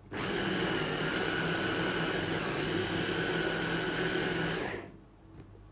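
Electric chopper, a hand-blender motor unit on a plastic chopper bowl, running with a steady whine as it whips pie batter. It starts at once and stops about a second before the end.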